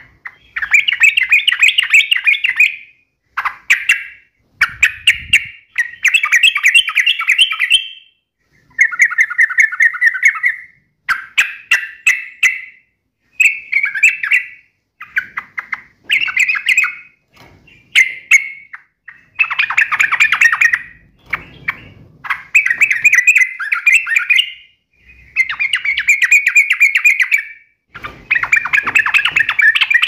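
Yellow-vented bulbul (trucukan) singing in-form: loud, rapid, bubbly chattering phrases of half a second to over two seconds each, repeated about fifteen times with short pauses between.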